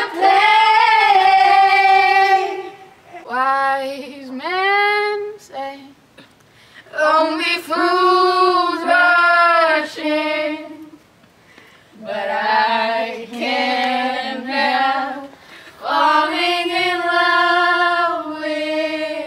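Young female voices singing a cappella together in long held phrases, about five of them with short breaks between.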